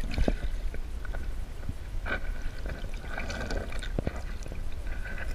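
Water sloshing and gurgling, heard through a submerged action camera, with a constant low rumble and scattered small clicks as a carp moves just under the surface.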